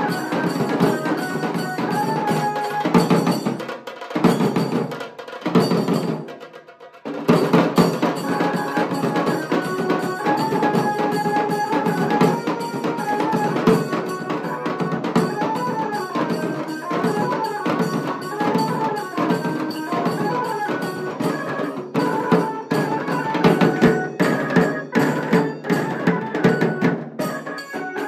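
Dhol tasha band playing: several large dhol barrel drums struck with sticks in a fast, driving rhythm, with a stepping melody line sounding over the drums. The drumming drops away briefly about six seconds in, then comes back in full.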